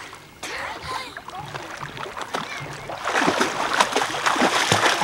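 Water splashing as a child swims through shallow lake water, arms and legs slapping and churning the surface; the splashing grows louder and busier in the second half.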